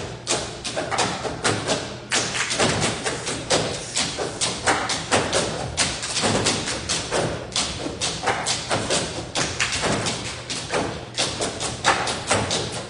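Table percussion: a group of performers striking a long tabletop with their hands, slaps and knocks in a quick, steady rhythm.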